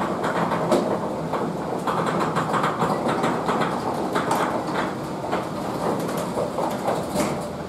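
Garage door rolling down on its tracks: a continuous rattling rumble with many small clicks from the rollers, stopping near the end.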